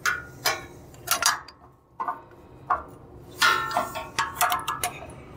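Irregular metal clicks and clinks from a bandsaw's upper blade guide assembly being worked into place by hand, the guide binding and knocking against the blade. About a dozen sharp taps, a cluster of them about three and a half seconds in ringing briefly.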